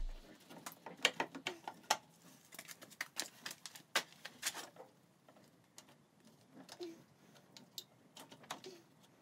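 Scattered clicks, taps and light knocks of hands and tools working around the upper intake manifold in a car's engine bay, with no steady rhythm; busiest in the first half, sparser later.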